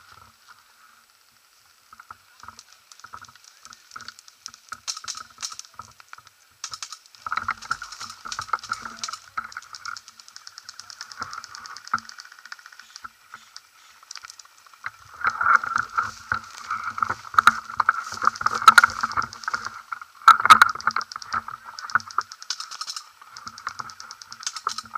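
Airsoft guns firing in rapid bursts: a fast rattle of clicks that comes and goes, heavier and louder from about fifteen seconds in, with a few sharp cracks.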